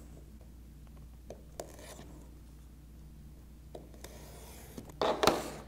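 Lid of a cardboard drone box being lifted and slid off, giving a rubbing scrape near the end, after a few faint taps of hands on the box.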